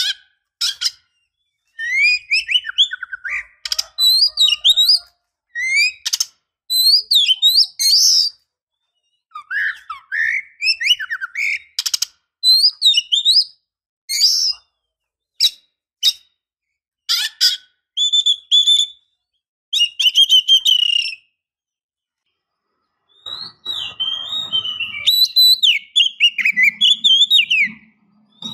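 Oriental magpie-robin singing: loud bursts of varied whistles and chirps, the notes gliding up and down, broken by short pauses, with a longer pause about three quarters of the way through.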